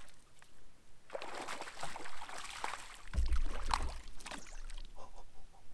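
Water splashing as a hooked smallmouth bass thrashes at the surface beside a kayak, with a low thump about three seconds in.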